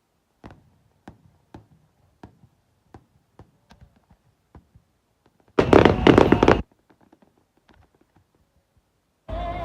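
Fireworks display: scattered faint pops and knocks, then a loud burst about a second long, about six seconds in, that cuts off abruptly.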